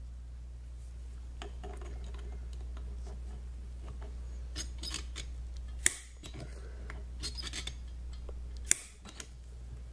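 Two sharp snaps about three seconds apart from a Pittsburgh Pro spring-loaded automatic center punch firing against the AR-15's sling adapter end plate, staking the castle nut by pushing metal into its notch. Lighter clicks and rubbing of the punch being set in place come before each snap, over a steady low hum.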